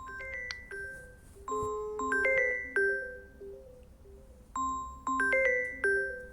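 Samsung Galaxy Tab A9+ tablet playing a marimba-like ringtone melody through its speaker: a short phrase of bright chiming notes that repeats about every three seconds.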